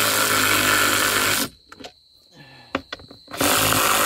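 Power driver running lag bolts up through a plywood board from underneath: one run stops abruptly about a second and a half in, a few clicks follow, and a second run starts near the end.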